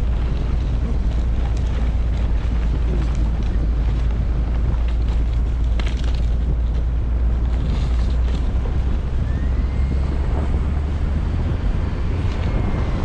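Wind buffeting a GoPro's microphone over a steady low rumble of motion.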